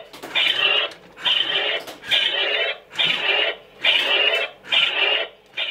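Toy robot's electronic sound effect played through its small built-in speaker: a short burst of sound repeating evenly, a little more than once a second, about seven times.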